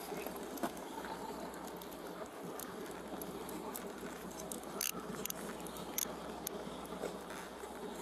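Clothing and arms rubbing on a body-worn camera, a steady close rustle, with several sharp clicks and taps in the second half.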